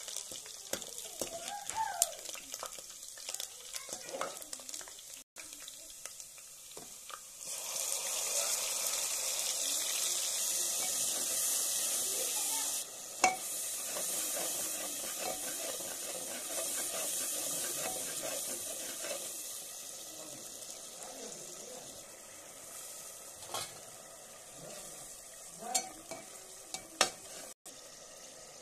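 Hot oil sizzling as food deep-fries in an aluminium pot, with a slotted metal spoon stirring and clinking against the pot a few times. The sizzling swells suddenly about seven seconds in, stays loud for several seconds, then eases off.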